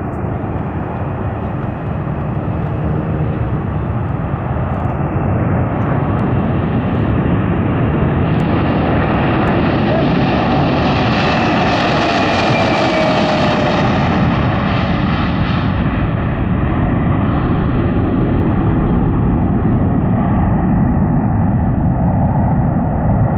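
Boeing KC-46A Pegasus tanker's twin Pratt & Whitney PW4062 turbofans at takeoff power during its takeoff run, growing louder over the first several seconds. Around the middle the jet noise brightens into a hiss with a whine sliding down in pitch as it passes, then eases back to a steady low rumble.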